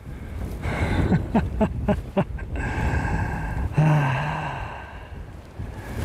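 A man breathing hard, with a low voiced sigh about four seconds in.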